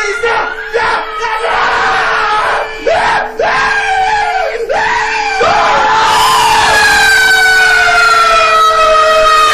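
Screamer sound effects: a run of short screams that each rise and fall, then one long scream from about five and a half seconds in that slowly falls in pitch, over a steady low tone.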